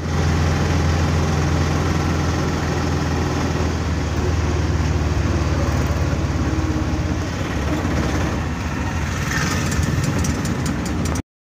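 Auto rickshaw engine running with a steady low drone, heard from inside the passenger cabin while riding along. It cuts off suddenly near the end.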